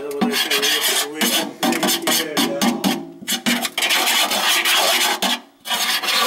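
A tool scraping and rasping at the kitchen sink's drain opening in repeated strokes, with short squeaky tones and a brief pause about five and a half seconds in.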